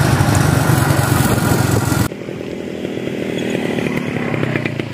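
Motorcycle engine running while riding, under heavy wind noise on the microphone. About two seconds in, the wind noise cuts off suddenly and the engine goes on more quietly with a steady low beat.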